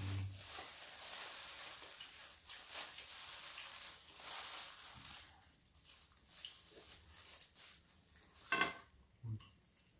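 Thin plastic bag rustling and crinkling as it is handled, dense and steady for the first half, then in fainter, scattered rustles.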